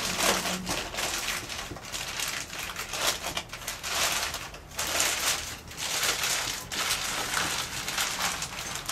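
Plastic bag wrapping a block of potter's clay being rustled and crinkled as it is opened, in a run of irregular bursts.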